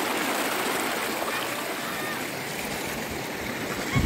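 Shallow rocky stream running fast over and between stones, a steady rushing, splashing flow of water. A brief low thump comes near the end.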